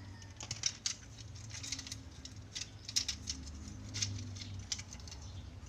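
Small hard plastic toy being handled: scattered light clicks, taps and scrapes of plastic parts.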